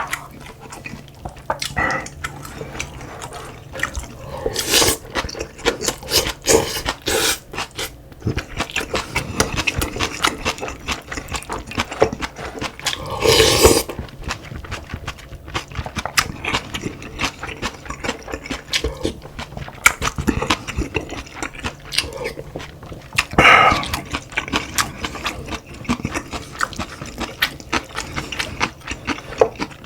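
Close-miked eating sounds: steady chewing with many small wet clicks and smacks, and a few louder, longer sounds about 5, 13 and 23 seconds in.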